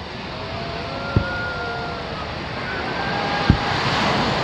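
Fireworks heard from a distance: two sharp booms of shells bursting, about a second in and again about three and a half seconds in, the second louder. Faint whistling tones glide over a steady wash of background noise.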